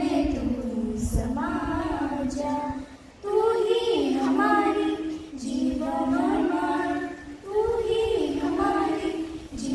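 Students at a school assembly singing together without accompaniment, in long held phrases with short pauses between them.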